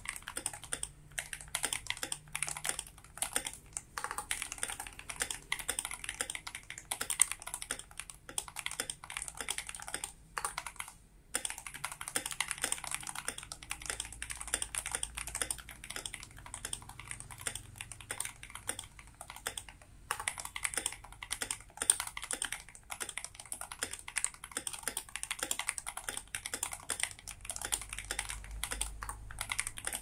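Fast, continuous typing on a Royal Kludge RK71 mechanical keyboard fitted with Feker Panda switches, a rapid stream of key clicks and clacks. The typing pauses briefly about a third of the way in and again near the middle.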